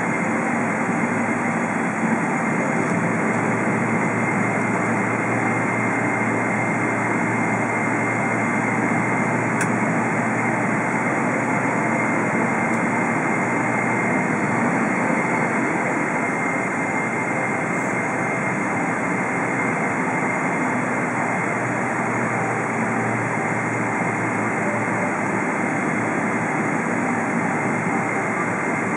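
Cabin noise inside a Boeing 777-300 taxiing on low engine thrust: a steady rush of jet engine and airflow noise with a faint steady high whine, not changing in loudness.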